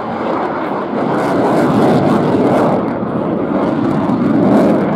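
RAF Eurofighter Typhoon's twin EJ200 turbofans running in afterburner during a display pass: a loud, steady jet noise that swells about a second in and again near the end.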